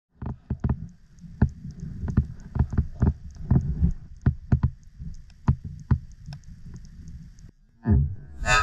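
Underwater audio through a camera's waterproof case: irregular muffled knocks over a low rumble, with a faint fast ticking above them. A louder, denser burst comes near the end.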